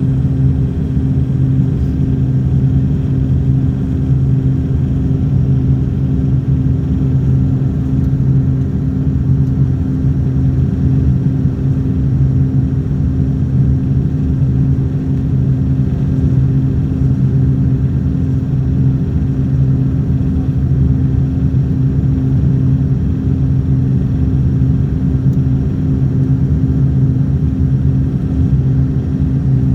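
Steady drone of an airliner's engines during its approach to land, a loud constant rumble with an unchanging low hum in several pitches.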